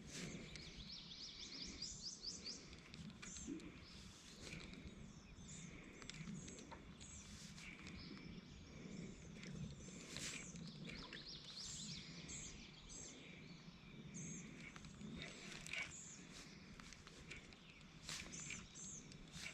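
Faint birdsong from several birds: repeated short chirps and quick trills, some in rapid runs, over a quiet outdoor background.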